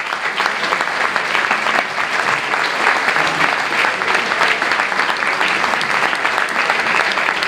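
An audience applauding steadily in a large hall: many hands clapping at once, a dense, even patter.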